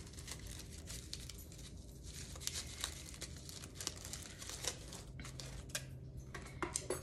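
A tea-bag wrapper being torn open and crinkled by hand: a run of light, irregular crackles and rustles.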